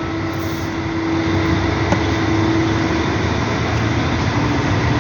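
A steady engine-like drone, probably from a vehicle or machine nearby, with a humming tone that fades out about three seconds in.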